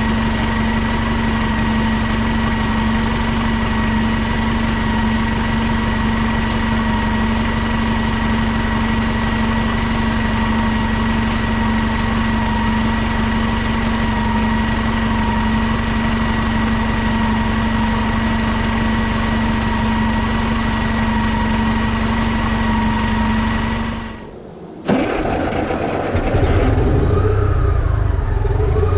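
1998 New Flyer C40LF natural-gas transit bus engine idling steadily at the open rear engine bay, with a constant whine. About 24 seconds in the sound drops away briefly and then cuts in again sharply; after that the bus engine is heard from on board, its pitch rising and falling.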